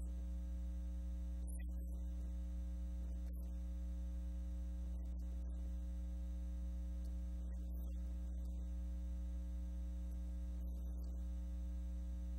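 Steady electrical mains hum with a buzz of higher overtones, unchanging throughout.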